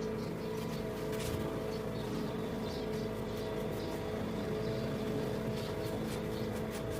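A steady mechanical-sounding hum holding a few fixed pitches over a low rumble, with a few faint clicks.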